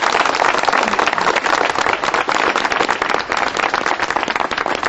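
A group of people applauding: a dense patter of hand claps that thins out near the end.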